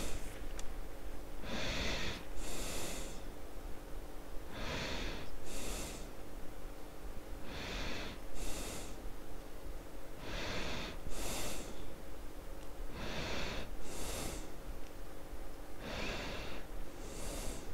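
A person breathing slowly and audibly, a breath in and a breath out about every three seconds, six times over.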